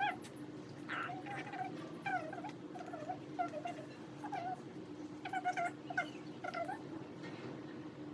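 A cat mewing repeatedly in short, high-pitched calls, over a steady low hum.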